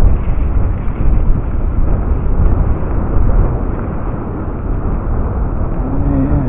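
Wind buffeting the microphone of a camera carried on a moving rider: a loud, uneven low rumble.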